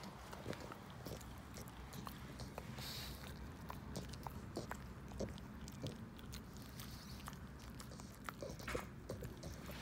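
Pug gnawing on a bully stick: a faint, irregular run of clicks from its teeth working the chew.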